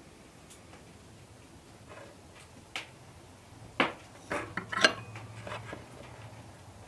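Small fluted tin tart pans and a wooden spoon clinking and tapping on a wooden tabletop as jam is spooned into pastry cases. A few scattered light taps, then a quick run of louder clatters about four to five seconds in.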